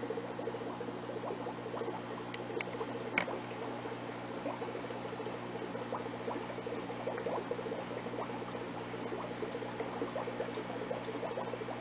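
Aquarium pump humming steadily under continuous bubbling and trickling water, with one sharper click about three seconds in.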